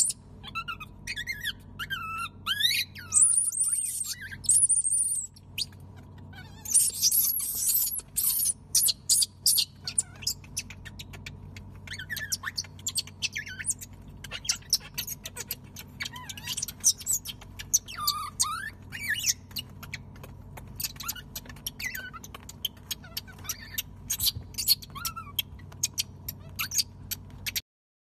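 Infant macaques squealing again and again in high, wavering calls, with many short clicks and scratches from their scrabbling, over a steady low hum. The sound cuts off abruptly near the end.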